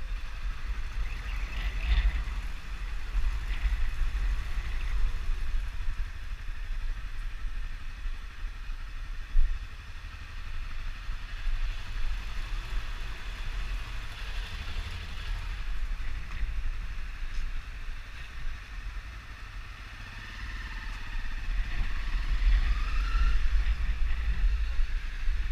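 Honda 250 cc motorcycle being ridden, its engine running under heavy wind rumble on the microphone, with one sharp knock about nine seconds in.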